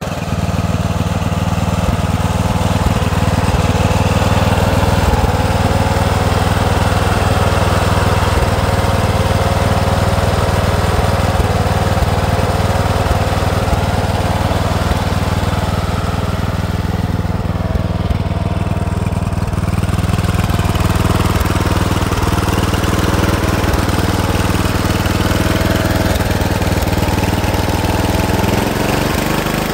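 Murray walk-behind lawn mower's small engine running steadily at constant speed, its note shifting slightly just before the end.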